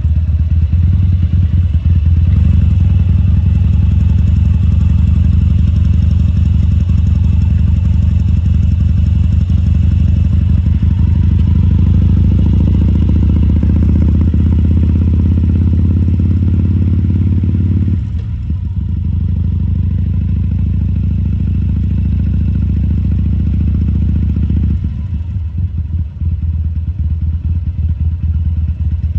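2014 Harley-Davidson Sportster XL1200C's air-cooled V-twin engine running steadily while ridden at low speed. It eases off briefly about two-thirds of the way in, and again near the end.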